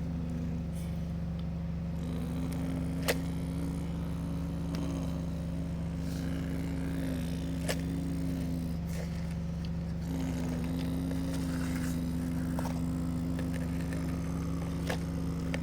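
Excavator running steadily, with a whine that cuts in and out in long stretches and steps slightly in pitch as the machine works. A few sharp clanks are heard, the loudest about three seconds in.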